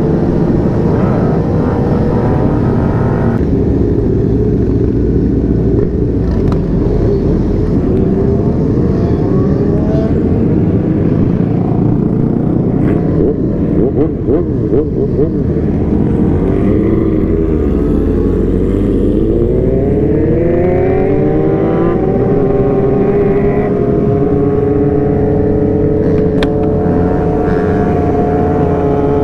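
Sportbike engine running under way with wind noise, heard from the rider's seat. Partway through it eases off, then its pitch rises steadily as it accelerates, and it settles into a steady cruise near the end.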